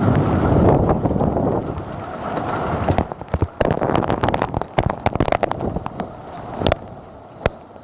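Storm wind gusting across the microphone as a loud rumble, easing after about two seconds, then heavy raindrops striking a nearby surface as many sharp, irregular ticks.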